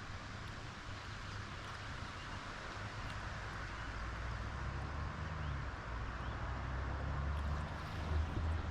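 Faint outdoor ambience: a low, steady rumble with an even hiss over it, slowly growing louder.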